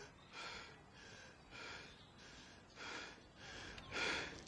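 A person breathing hard and fast, out of breath, with a loud breath roughly every second and the loudest near the end.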